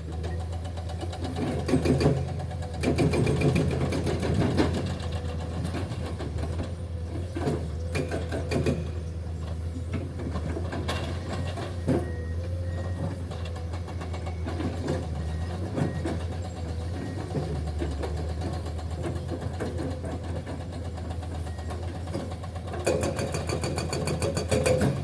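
Excavator's diesel engine running steadily, with irregular knocks and scrapes of rock on steel. Near the end comes a burst of rapid hammering from the hydraulic breaker.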